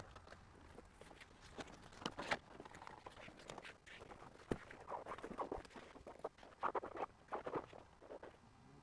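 Faint, irregular rustling, scraping and light tapping of a headliner panel being handled and pushed into place inside a Jeep Cherokee XJ, busiest near the middle and in the second half.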